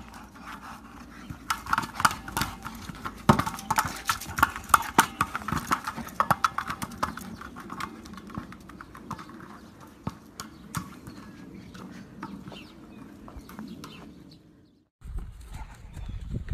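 A dog scuffling with a ball on grass: a fast, uneven run of knocks and clicks from paws and ball, busiest in the first half. The sound breaks off abruptly near the end and a louder thudding starts.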